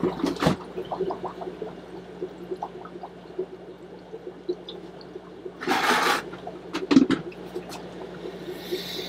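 Water sloshing and splashing in a plastic bucket holding plecos, with scattered small knocks and a louder splash about six seconds in, over a steady low hum.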